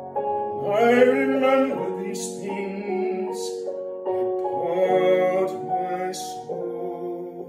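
A man's voice singing the words of a psalm in long, drawn-out phrases over a slow instrumental piano. The voice stops shortly before the end while the piano carries on.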